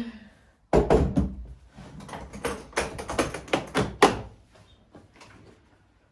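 A run of irregular taps and knocks from hard objects being handled. It starts about a second in and stops after about four seconds.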